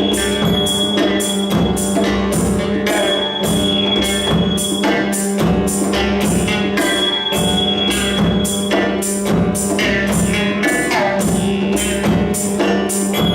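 Live band music: hand drums, djembe and wavedrum, keep a steady beat of about three strokes a second over long held drone notes.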